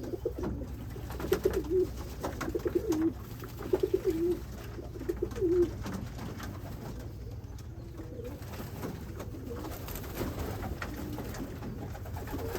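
Pigeons cooing: four loud warbling coos in the first half, then fainter coos.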